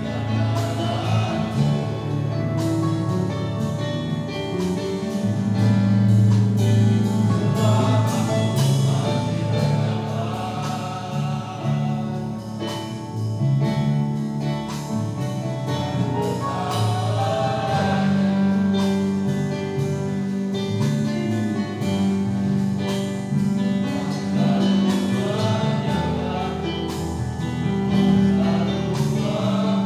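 Men's choir singing a gospel song in low, sustained voices, with light instrumental accompaniment.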